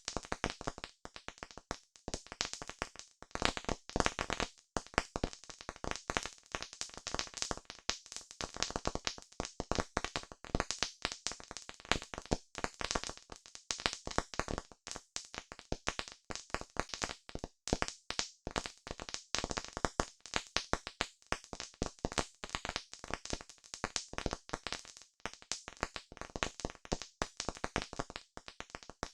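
Wood campfire crackling steadily, with many irregular sharp pops and snaps, several a second.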